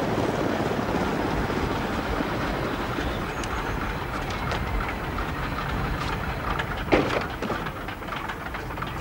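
Piston engines of a twin-engine propeller airliner running on the ground, their steady noise slowly dying away, with a sharp knock about seven seconds in.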